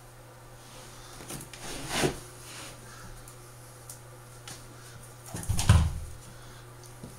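Electric dog clippers humming steadily while a frightened Australian shepherd struggles on a grooming table. There is a burst of scuffling about two seconds in, and a louder one with a heavy thump near the end as the dog twists and fights.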